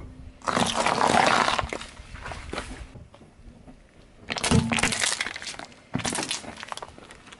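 A car tyre rolling over a heap of pickled gherkins, crushing them with a long, loud wet crunch about half a second in and some crackling after. Then small plastic tubs of cream cheese burst under the tyre in two crunches about a second and a half apart.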